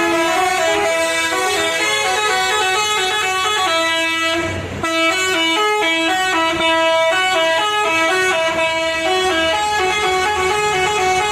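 Bus 'telolet basuri' musical air horn, a set of trumpet horns playing a tune in stepped notes, with a brief break about four and a half seconds in before the tune carries on.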